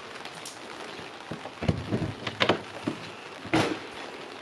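Steady rain pattering, with a run of clicks and knocks from about a second and a half in as the travel trailer's entry door is unlatched and swung open.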